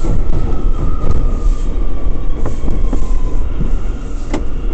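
R179 subway car running through a tunnel, heard from inside the car: a heavy rumble of wheels on rail with a few sharp clicks over rail joints and a thin whine slowly falling in pitch.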